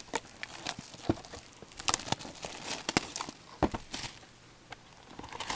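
Cardboard trading card box and foil packs being handled: scattered taps, clicks and short rustles, with a few sharper knocks about a second and a half and three and a half seconds in.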